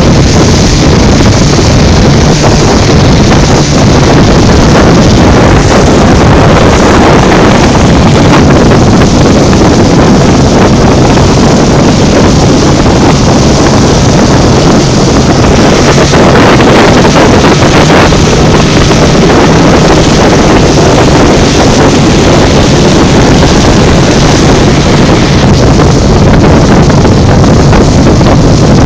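Selva 115 outboard motor running steadily, a faint even drone under heavy wind buffeting the microphone and the rush of water past the hull of a Joker Boat Coaster 580.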